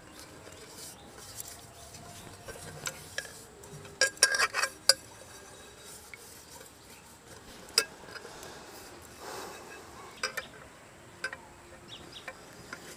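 Aluminium pressure cooker pot being handled and tilted while oil is rubbed over its inside by hand: occasional light knocks and clinks of metal, with a quick run of them about four seconds in.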